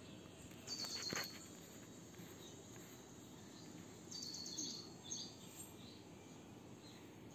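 Faint outdoor background noise with a bird chirping: two short, rapid, high-pitched trills, about a second in and again around four seconds in, and a faint click near the first.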